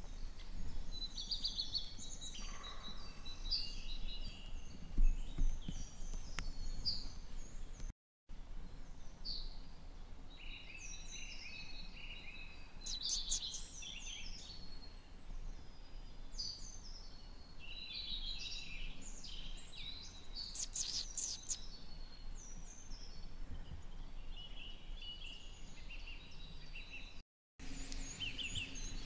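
Several songbirds singing at once, with many short chirps and trills, over a low outdoor rumble. A single low thump about five seconds in is the loudest sound, and the sound drops out completely for an instant twice.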